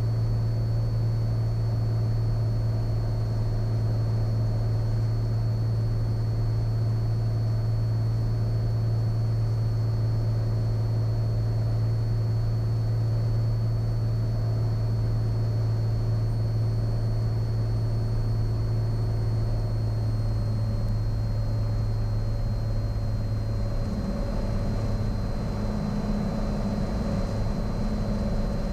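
Cessna Skylane's piston engine and propeller droning steadily in the cabin on approach. A faint high whine sits above it, and the drone changes pitch near the end.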